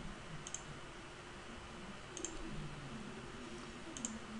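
Computer mouse clicking three times, about one and a half to two seconds apart, each click a quick double tick, over a steady faint hiss.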